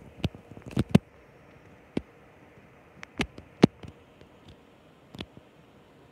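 Igenix 30-inch tower fan running on speed 2 without oscillation, a steady airflow whoosh. Several sharp clicks or knocks sound over it, most in the first four seconds.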